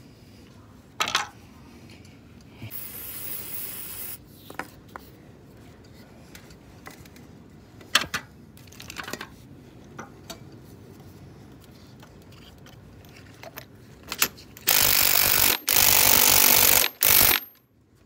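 Cordless impact driver running in two loud bursts near the end, a couple of seconds in all with a short break between them. Scattered clicks and knocks of handling tools and the unit's metal come before it.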